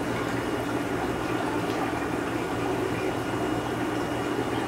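Steady bubbling and water rush of the air stones and filtration in a rack of aquarium tanks, over a low, even hum.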